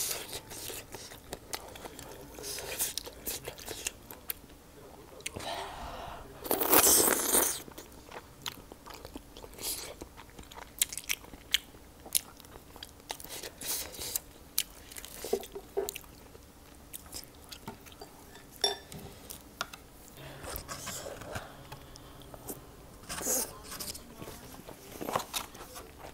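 Close-miked eating: irregular crunching bites and chewing, with one longer, louder noise about seven seconds in.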